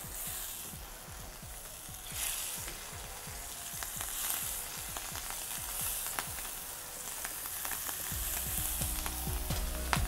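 Peeled, seasoned shrimp searing in hot olive oil in a skillet: a steady sizzle that flares up every couple of seconds as more shrimp are laid in, with small spitting crackles.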